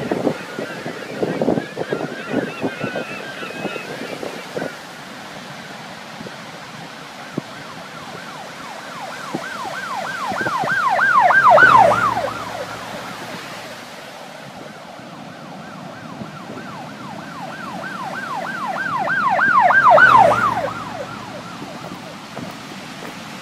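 Emergency vehicle siren on a fast warbling yelp, about three sweeps a second. It passes by twice, each time swelling to a loud peak, dropping in pitch and fading away, over a steady wash of surf-like noise.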